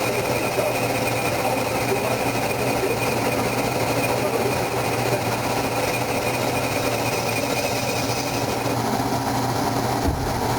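Haas CNC lathe running on an aluminum workpiece: a steady machine drone and hum with a high whine that stops about two seconds before the end.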